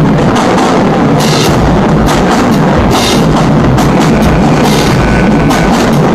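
High school marching band playing loudly, led by its drumline: snare drums, bass drums and repeated crashes of hand cymbals, with sousaphones and horns.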